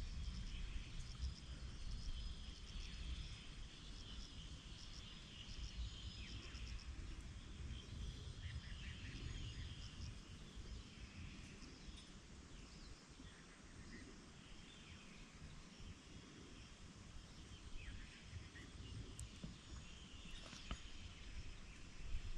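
Quiet outdoor ambience: scattered bird chirps and insect calls over a low, uneven rumble.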